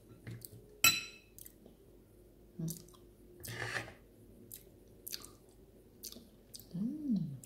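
Chewing and lip smacks of someone eating raw anchovies cured in vinegar (kinilaw) with boiled sweet potato. There is a sharp click about a second in and a short hummed 'mm' that rises and falls near the end.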